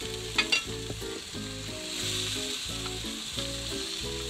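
Pink snapper fillet and fish wings sizzling on a barbecue grill, with two sharp taps about half a second in.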